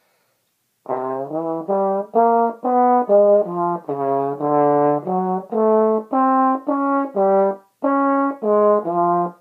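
Tenor trombone played solo: a melodic line of about twenty short, separately tongued notes in its middle register. It starts about a second in and has one brief pause near the end.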